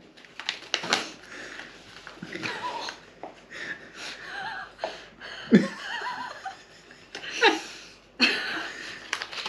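A woman and a man laughing in short, breathy bursts, with a few brief voiced sounds.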